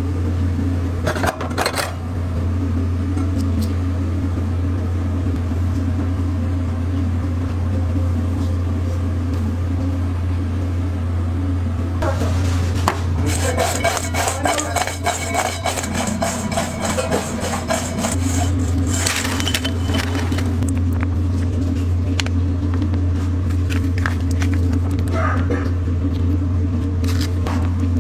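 Kitchen sounds over a steady low hum: clatter and scraping of utensils, with a stretch of rapid rattling about halfway through as fries are tossed in a metal mixing bowl.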